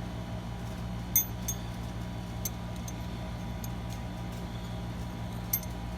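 A few small, sharp metal clicks and clinks from a padlock and its steel shackle being handled, the loudest about a second in, over a steady low hum.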